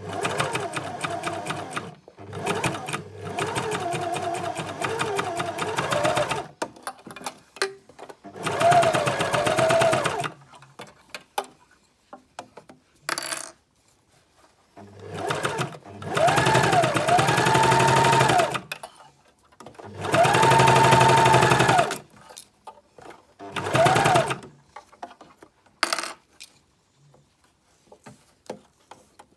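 Sewing machine topstitching a binding in about five separate runs, its motor whine rising and falling in pitch as the speed changes, with short pauses and small handling clicks between runs.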